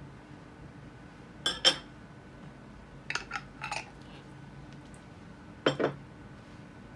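A metal fork and utensils clinking against a stainless steel mixing bowl, a glass jar and a ceramic plate, in three short groups: two loudest clinks about a second and a half in, a few lighter ones around three to four seconds, and a pair near six seconds.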